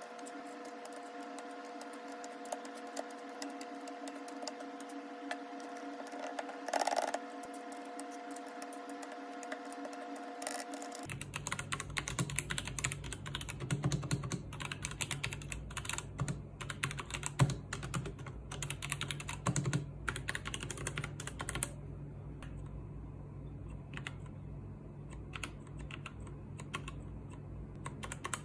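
Typing on an X21TKL mechanical keyboard with pudding keycaps: a fast, irregular run of key clicks. A steady electrical hum lies under the typing, and its pitch drops about eleven seconds in.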